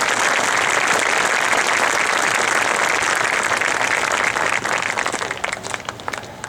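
Crowd applauding and cheering after a marching band's performance, a steady wash of clapping that thins to scattered claps over the last second or so.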